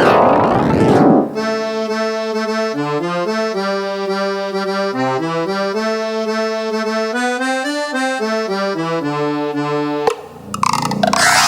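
Dark MIDI arrangement of a sea shanty ringtone, played back as synthesized MIDI music. It opens with a dense swirling mass of many notes at once, which breaks about a second in into a plain tune of held chords over a stepping bass line. The swirl comes back after a brief drop near the end.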